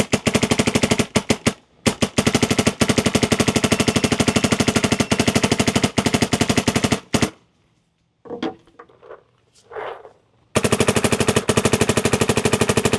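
Dye MXR electro-pneumatic paintball marker firing in ramping mode, a rapid stream of shots. There are two long strings, the first about seven seconds long, then a pause of about three seconds, then firing again near the end.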